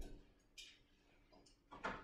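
Faint, scattered clicks and knocks of things being handled at a kitchen counter: a light click about half a second in, another past halfway, and a louder knock near the end.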